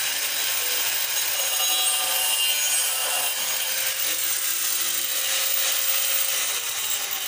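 Angle grinder cutting metal tubing: a steady grinding noise.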